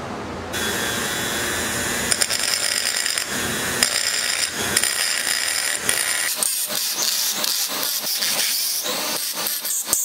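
A steady high-pitched whine for the first six seconds or so. Then come rhythmic metal taps, about three a second, as a punch stipples a dotted texture into a copper-pipe knife handle.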